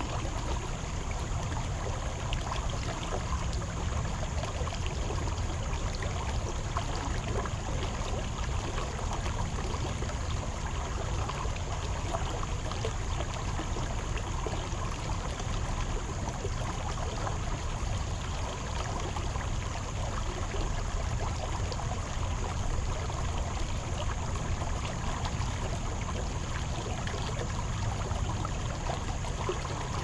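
Shallow rocky creek running over stones, a steady rush of water.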